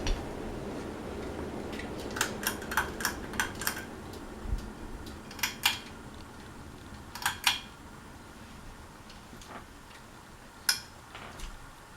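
Hunter Beacon Hill ceiling fan coasting down after being switched off, its running noise fading away steadily. Light metallic clicks and clinks come in a quick run of about eight early on, then a few more scattered later.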